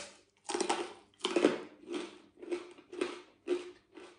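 Close-up crunching as a piece of crispy fried pork belly is chewed, a crackly crunch about twice a second, the first couple of bites the loudest.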